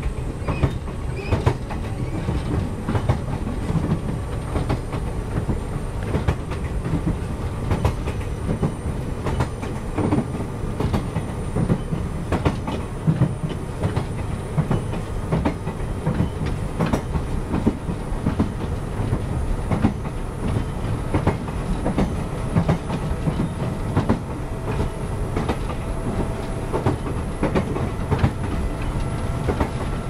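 Toyama Chiho Railway 10020 series resistance-controlled electric train, on ex-Eidan 3000 series running gear, running between stations as heard from inside the car. The wheels clatter over rail joints under a steady rumble, with a thin whine that rises slowly in pitch.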